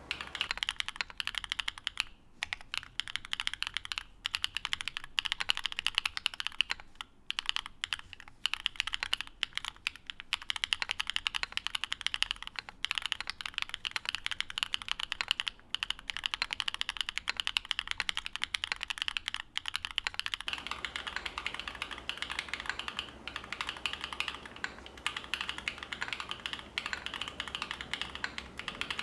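Steady fast typing on a custom mechanical keyboard: FOD Lucky linear switches with polycarbonate housings in a carbon-fibre-plate, gasket-mounted, fully foamed board, giving a dense run of key strikes. About two-thirds of the way through, the recording switches to a camera microphone, and a low background hum comes up under the keystrokes.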